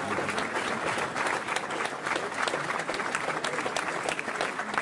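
Audience applauding, many hands clapping at once.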